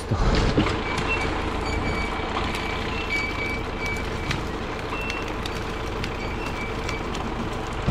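An engine running steadily at an even level, with short high tones coming and going irregularly over it.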